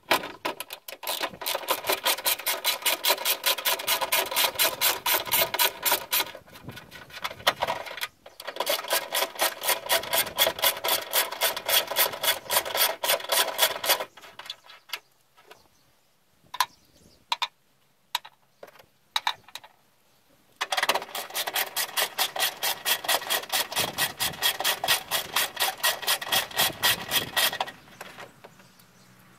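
Hand ratchet wrench clicking rapidly in three long spells, with scattered single clicks between, as it backs out the bolts of the upper fan shroud.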